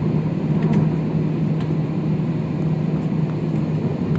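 Steady cabin noise of a jet airliner taxiing, its engines running at low taxi power with a constant low hum, heard from a window seat inside the cabin. A few faint clicks sit over it.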